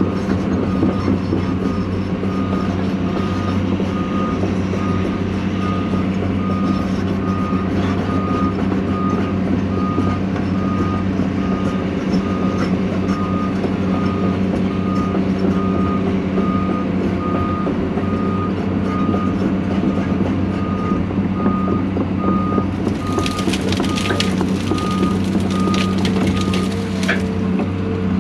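John Deere 250G LCR excavator's diesel engine running steadily with its travel alarm beeping at an even rhythm while the machine moves. From about 23 seconds in, wood cracks and splinters as the machine shoves into brush and logs, and the beeping stops near the end.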